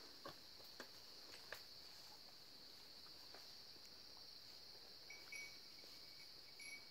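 Faint, steady, high-pitched drone of forest insects, with a few soft clicks in the first second and a half and a faint thin note near the end.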